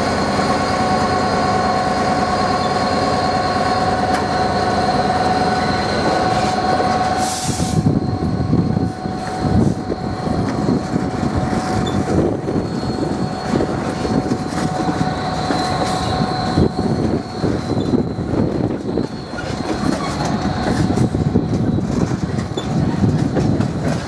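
A British Rail Class 66 diesel-electric freight locomotive passes with its engine running steadily, followed by a long train of covered car-carrier wagons. A brief hiss comes about seven seconds in. After that the wagons' wheels rumble and clatter over the rail joints, with a faint wheel squeal.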